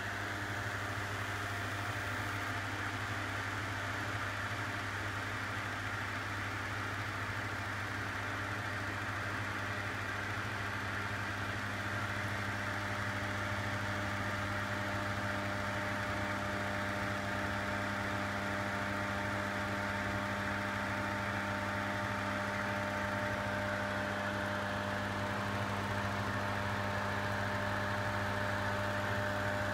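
Homemade induction heater built from an induction cooker running under load with its cooling fan, heating a steel piece inside its copper work coil to red heat. It gives a steady electrical hum with a fan-like hiss over it.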